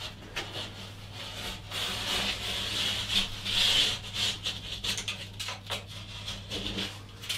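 Plasterboard being worked apart along its snapped score line: paper facing and gypsum rubbing and rasping in a run of uneven scrapes, loudest from about two to four and a half seconds in.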